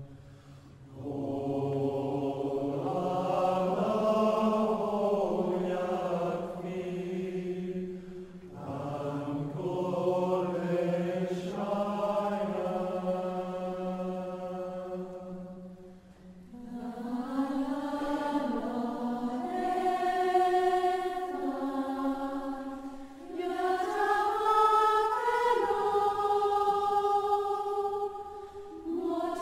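Voices chanting a prayer in long, slow sung phrases of several seconds each, with short breaks between phrases. The later phrases are pitched higher than the first ones.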